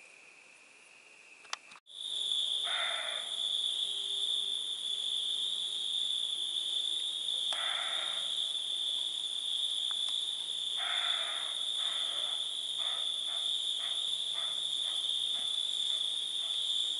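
Crickets trilling at night: a faint, lower trill for the first couple of seconds, then after a click a loud, unbroken high-pitched trill. Shorter, lower calls break in three times, then come as a quick run of short pulses near the end.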